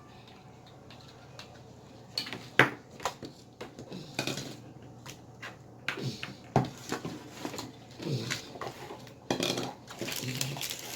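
Irregular clicks, clinks and taps of slime-making materials being handled: containers, utensils and slime being worked by hand. They start about two seconds in and the loudest comes just after.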